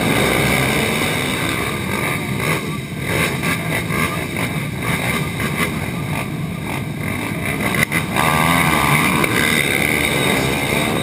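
Many racing quad (ATV) engines idling and revving together at a race start line, with rows of quads launching and pulling away. About eight seconds in there is a sharp crack and one engine's pitch wavers up and down.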